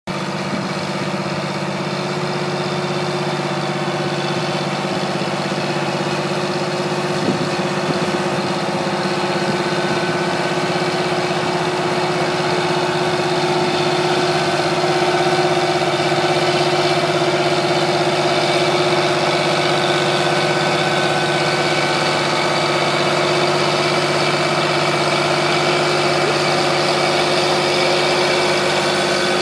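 Large John Deere diesel tractor engine running steadily under load while it drives a Reck silage spreader into a silage pile, a constant even drone that barely changes.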